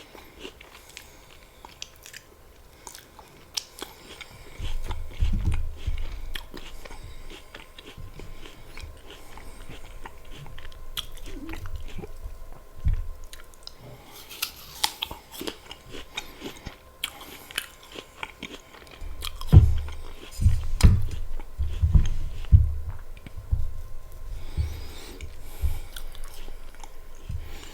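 Close-miked biting and chewing of crisp apple slices with peanut butter: crunching and clicking mouth sounds, with heavy low chewing thuds in two spells, about five seconds in and again from about twenty seconds.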